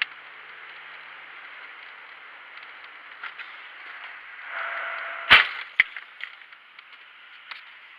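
Steady road and engine noise through a dashcam's small microphone. It swells briefly, then comes one loud sharp bang about five seconds in and a smaller crack half a second later: a vehicle collision.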